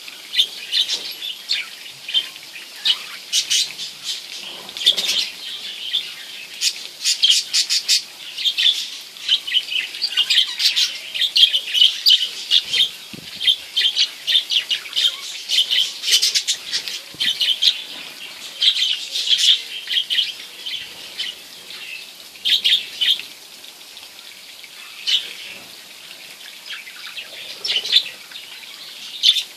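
Budgerigars chattering and chirping: a dense run of short, high chirps that thins out near the end.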